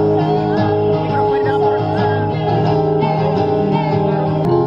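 Live acoustic guitar with a woman singing over it, played through a small amplifier and loudspeaker.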